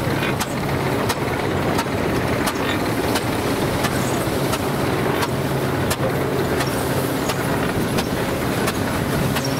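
An engine running steadily, with a regular clicking beat a little over once a second.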